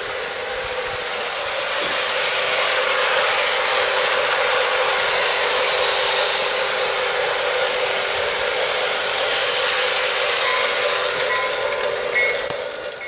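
Lionel LionChief RS3 model diesel locomotive running with its train on a garden railway: a steady rushing noise that swells about two seconds in and eases near the end. A few short high tones sound near the end.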